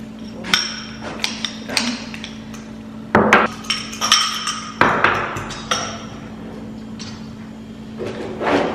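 Metal spoon tapping and clinking against a ceramic bowl while mashing avocado, a string of sharp knocks with a ringing tone, with a few heavier knocks about three seconds in.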